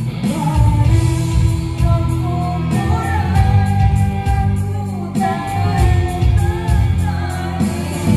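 Live band music played loud through a large PA sound system: a woman singing over hand drums, electric guitar and a heavy bass.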